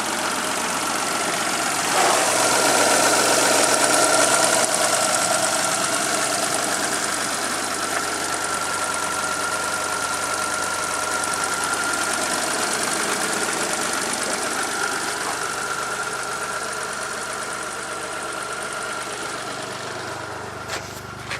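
1997 Geo Metro's Suzuki 1.0-litre three-cylinder engine idling on a cold morning, with a brief swell about two seconds in, after which it slowly gets quieter.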